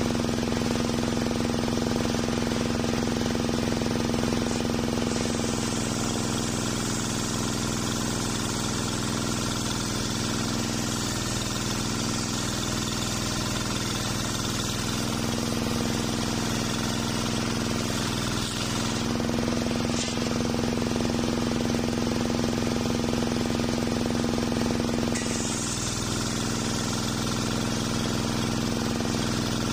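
Engine-driven homemade circular sawmill running steadily while its big blade rips through an old waru (sea hibiscus) log. The hiss of the cut grows louder about five seconds in, eases around nineteen seconds and comes back near twenty-five, the engine note sagging briefly as it takes the load.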